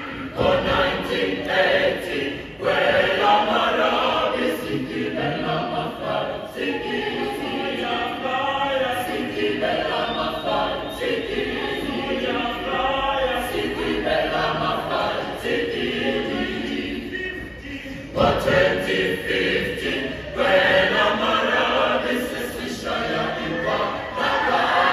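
Mixed choir of men and women singing a cappella at full voice, with a brief break about eighteen seconds in before the singing picks up again.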